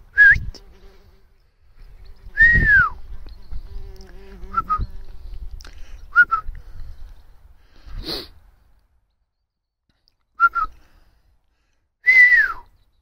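A sheepdog handler's whistle signals. There is a short rising whistle, then a long whistle falling in pitch, then several pairs of short quick pips, and another long falling whistle near the end. A low wind rumble runs under the first part.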